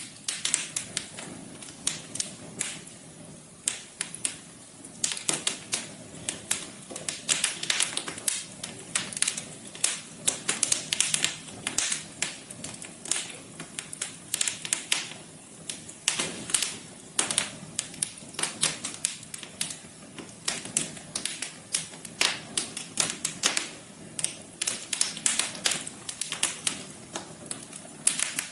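Wood fire crackling, with dense irregular pops and snaps over a low steady hiss.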